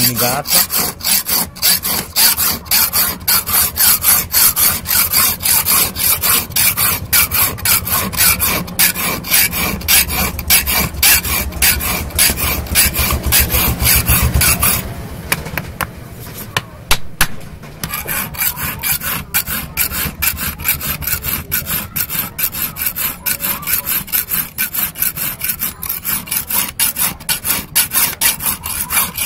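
Hand file rasping back and forth across the edge of a hand-forged steel knife blade in quick, even strokes, about three a second, filing the blade's bevel. The strokes weaken briefly about halfway through.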